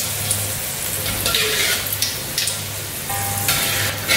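Green chillies sizzling in very hot oil in a steel wok, with scattered crackles and pops, while a slotted spoon lifts them out.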